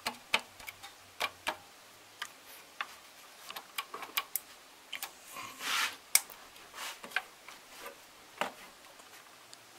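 Irregular light clicks and knocks of metal engine parts being handled and set in place on an open cylinder head, with a short scraping rub a little before six seconds.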